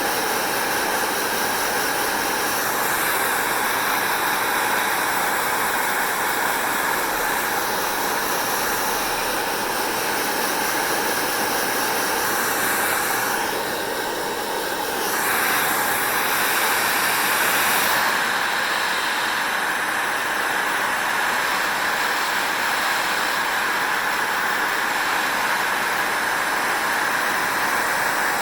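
Hair dryer blowing steadily, a constant airy whoosh with a motor hum in it; about halfway through it dips briefly and changes in tone, then comes back a little louder.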